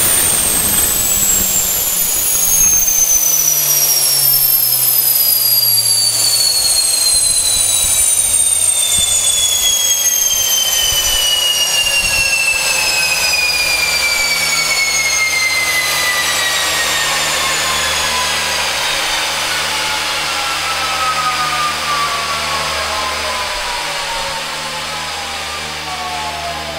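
Garrett GTP-30-67 gas turbine spooling down after shutdown: a high turbine whine of several tones, falling steadily in pitch and slowly fading, over a steady low hum.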